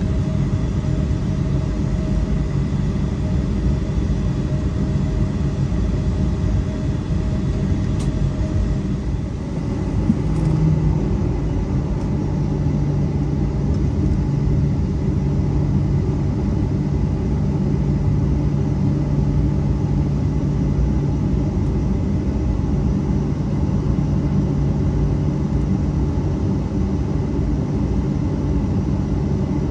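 Steady rumble of an airliner cabin, engine and air noise with no break; about ten seconds in, a low steady hum joins and holds.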